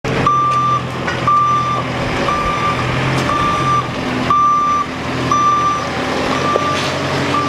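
Reversing alarm on a JCB 540 telehandler backing up: a single-pitch beep, about one a second, eight times, over the machine's diesel engine running.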